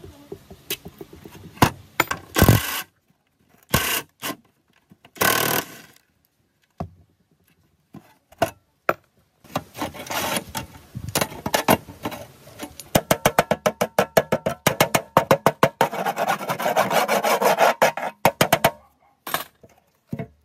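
Rusty vise lead screw on a steel cut-off saw base being wound by hand, its corroded threads grating in a fast, even run of scraping strokes that grows louder before stopping near the end. Scattered metal knocks and clatter come before it as the parts are handled.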